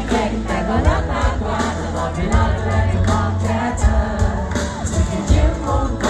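Live pop song sung in Thai over a band, with a strong bass line and drum hits, through a concert PA.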